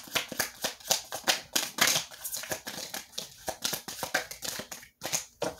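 A deck of tarot cards being shuffled by hand: a rapid run of card snaps and flicks that eases off near the end.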